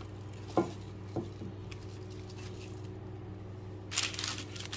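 A sharp knock and then a softer one, followed near the end by baking paper crinkling and rustling as a breaded chicken schnitzel is set down on a paper-lined metal baking tray, over a steady low hum.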